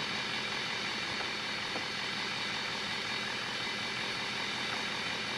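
Steady idling engine hum with a faint click about two seconds in.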